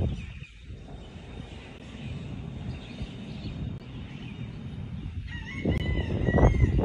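Wind rumbling and buffeting over a burning town, with crackling from the fire. About five seconds in, a high pitched call lasting about a second rises over the rumble.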